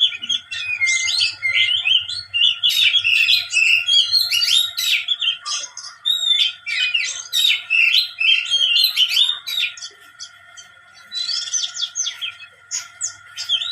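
Songbird singing a fast, varied song of chirps, trills and whistles with hardly a pause, briefly easing off about ten seconds in before starting again.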